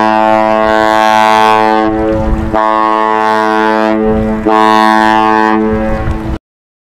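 Horn of the Great Lakes freighter MV Stewart J. Cort sounding a salute: one long blast, then two more blasts after brief breaks, cutting off suddenly near the end.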